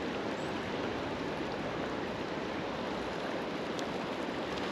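Steady rush of river water flowing over a run.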